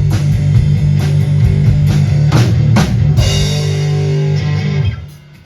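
Live rock duo of electric guitar and drum kit playing the closing bars: two hard hits, then a held, ringing final chord with cymbals that stops about five seconds in.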